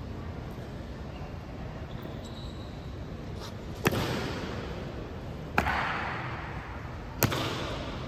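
Three heavy stamps, evenly spaced about 1.7 seconds apart, each ringing on with a long echo as in a large stone hall: typical of the honor guard's slow drill march.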